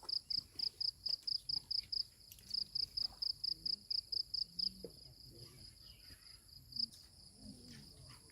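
Insect, likely a cricket, chirping in a fast even trill of high-pitched pulses, about five a second over a steady high buzz. It breaks briefly after about two seconds and stops a little before five seconds, with one last chirp near seven seconds.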